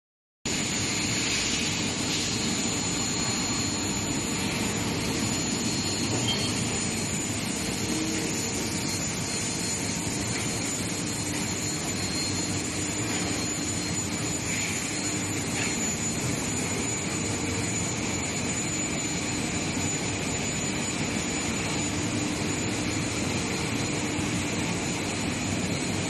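Long steel-bar induction hardening and tempering line running: a steady, even industrial noise with a thin, constant high-pitched whine over it.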